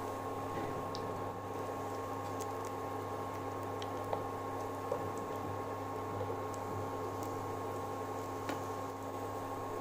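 Breaded baby corn fingers deep-frying in hot oil: a steady sizzle with a few faint clicks as a slotted spoon turns them, over the constant hum of an induction cooktop.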